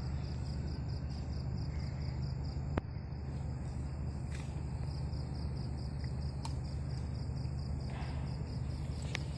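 Crickets chirping in a rapid, even pulse over a loud, steady low hum, with one sharp click about three seconds in.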